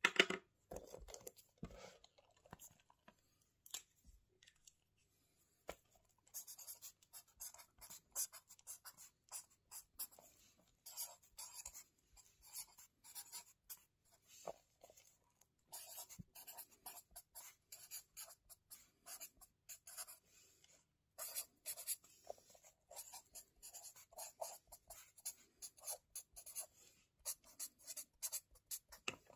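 Handwriting on lined notebook paper, close up: a louder rustle of handling at the start, then a run of quick scratchy pen strokes in bursts with short pauses between words.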